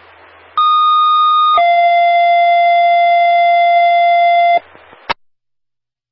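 Two-tone sequential paging tones over a scanner radio: a higher tone held about a second, then a lower tone held about three seconds. These are the alert tones that page a fire department ahead of a dispatch. Radio hiss comes in before the tones and after them, ending in a short click as the transmission drops.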